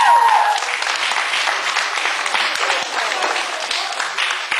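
Audience applauding, a dense patter of many hands clapping, with a voice calling out over it in the first half-second.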